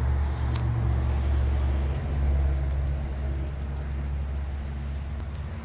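2009 Dodge Ram pickup's V8 engine idling with a steady low rumble.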